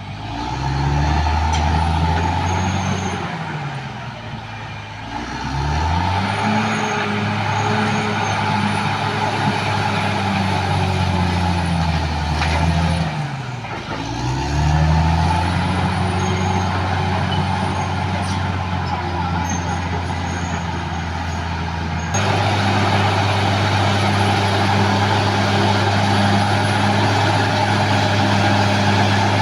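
Caterpillar D6R XL bulldozer's diesel engine working under load, its pitch sagging and then climbing back several times as it pushes, then running steady and slightly louder near the end.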